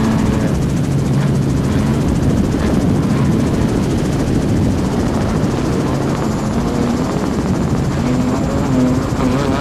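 Helicopter running steadily, heard from on board: a continuous, even rotor and engine drone.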